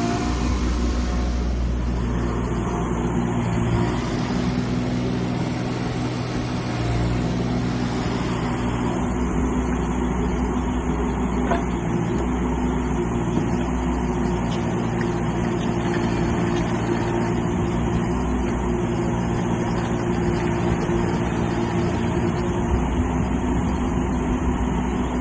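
JCB 16C mini excavator's diesel engine running steadily.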